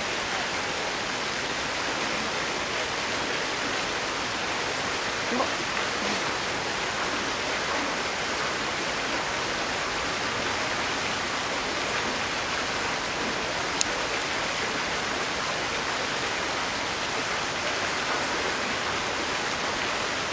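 Steady rushing noise of running water, like a waterfall or stream, with a single faint click about fourteen seconds in.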